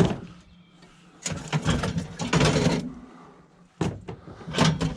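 Power cords being cut off a scrapped cooker and pulled free: a sharp snap at the start, then rasping and clattering handling noise, over a low steady hum that fades out about halfway through.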